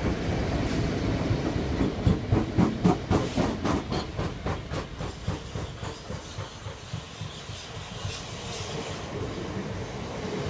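Rail vehicle wheels rolling past, then clicking rapidly over rail joints, about three to four clicks a second, fading away as the train recedes. Near the end a Class 375 electric multiple unit draws in alongside with a rising hiss.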